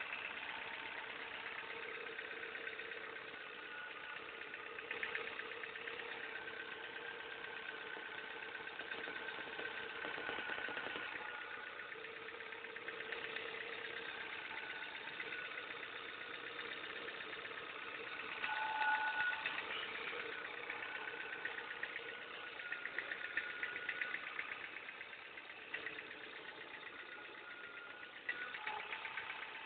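Ford Fiesta Mk5 engine idling, with a steady whine and fast ticking from the accessory-drive side, which the owner places at the power-steering pump pulley or the crankshaft pulley.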